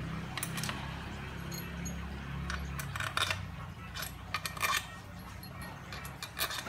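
Steel crankcase bolts clinking together in a gloved hand and tapping against the crankcase of a motorcycle engine as they are set into its bolt holes. A scattered series of sharp metallic clicks comes in small clusters.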